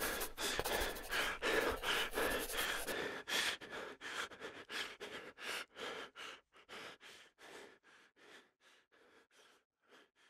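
Intro sound effect: a fast series of short, breathy bursts, about three a second, fading away steadily to almost nothing near the end.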